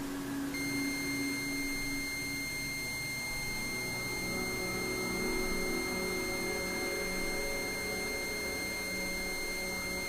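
Meditation music of soft sustained drone chords, joined about half a second in by a steady, high, pure synthesized tone that holds unchanged.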